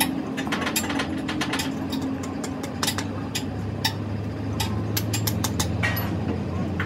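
Irregular metallic clicks and clinks of a spanner working the bolts on a Hino truck's steering gear box, over a steady low engine hum.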